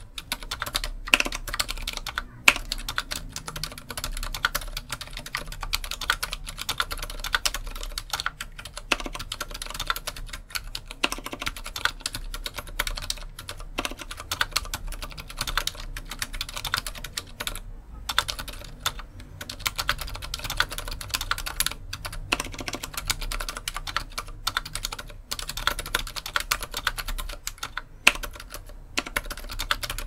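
Fast, continuous typing on a mechanical keyboard with stock Gateron Silent Brown switches in an aluminium housing: a modded MonstarGear XO V3 with a brass plate. Many quick, damped keystrokes a second, with a couple of brief pauses.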